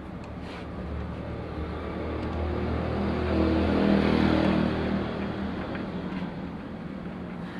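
An engine running, growing louder to a peak about halfway through and then easing off again.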